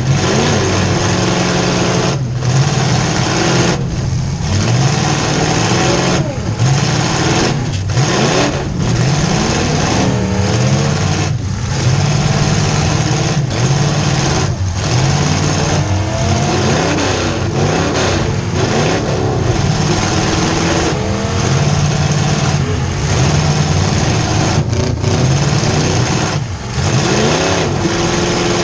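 Demolition derby car's V8 engine running loud inside the stripped cabin, revving up and down again and again.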